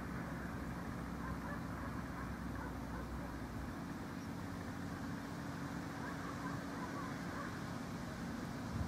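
Steady low mechanical hum of distant machinery, with a deeper rumble under it that drops away about four seconds in.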